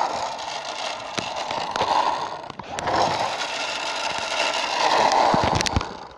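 Loud rubbing and scraping handling noise as a plastic toy bus is moved about over carpet by hand, swelling and easing in waves, with a few sharp clicks.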